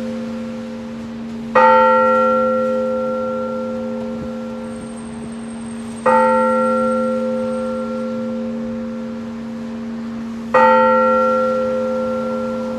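Old Russian church bell cast in 1825 by Stepan Saushkin, tolled in blagovest: single strikes about four and a half seconds apart, three in all, each ringing on with a slowly fading hum under the previous one.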